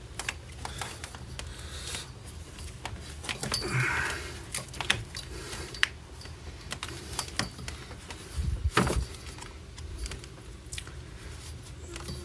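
Scattered light clicks, taps and rustling of plastic cable-management channel and wires being handled and fitted, with one louder knock about two-thirds of the way through, over a low steady hum.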